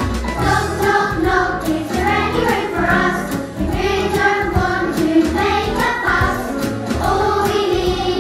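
A group of young children singing a song together over recorded backing music.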